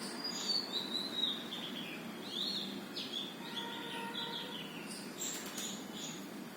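Sunbird singing: a rapid run of high, twittering notes lasting about five seconds.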